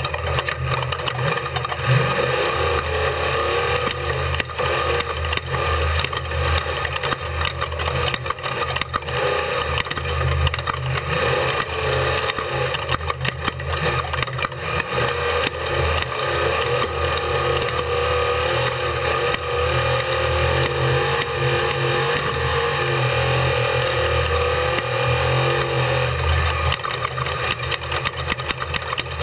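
Unlimited-class desert race truck driven flat out over rough desert ground, heard from inside the truck. The engine pitch rises and falls with the throttle over constant rattling and knocks from the truck.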